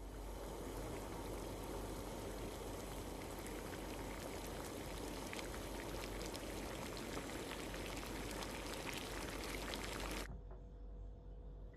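Water with spices boiling in a pot on the stove: a steady bubbling hiss with fine crackles. It cuts off suddenly about ten seconds in, leaving a faint steady hum.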